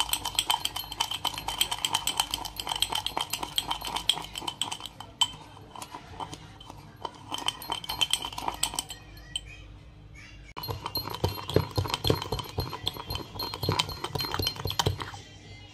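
Metal spoon beating rapidly against a glass tumbler, a fast run of clinks with the glass ringing, as instant coffee and sugar with a spoonful of hot water are whipped into a paste. The clinking thins out about five seconds in and picks up again after about ten seconds.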